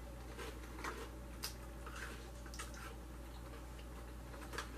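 Faint, scattered crunches and crinkles of someone eating chips from a foil-lined snack bag, a handful of short clicks a second or so apart, over a low steady hum.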